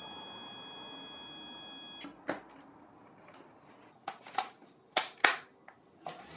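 Digital multimeter's continuity beeper sounding a steady high beep that stops about two seconds in, the sign that the earth connection is sound. Then a string of sharp clicks and knocks, the loudest two close together about five seconds in.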